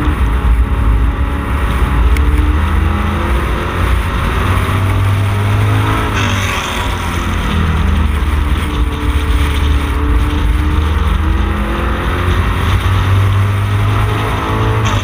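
Street Stock Camaro race car's engine at racing speed, heard from inside the car. The engine note rises and falls in pitch as it accelerates down the straights and lifts for the turns.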